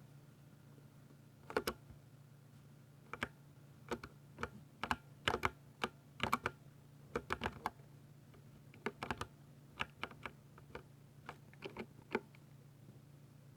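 Keystrokes on a 60% Ducky mechanical keyboard with silver switches, typed in short irregular bursts of clicks starting about a second and a half in, over a faint steady low hum.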